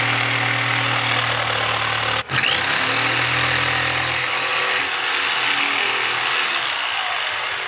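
Corded jigsaw cutting a circle out of plywood, its motor running steadily. It stops briefly a little over two seconds in, starts up again, and winds down near the end.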